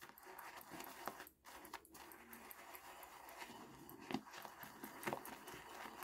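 Synthetic shaving brush being swirled through thick shaving lather in a bowl, faint and irregular, with a few small clicks.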